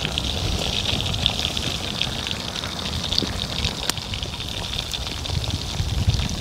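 Pieces of fish frying in hot oil in a pan over a campfire: a steady sizzle with crackles and a few sharp pops.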